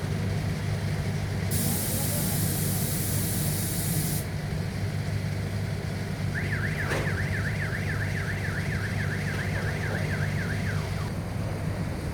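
Steady low drone of heavy machinery. A loud hiss, like air or pressure being released, comes in about a second and a half in and stops sharply after about two and a half seconds. Later a warbling electronic alarm, wobbling about four times a second, sounds for about four seconds.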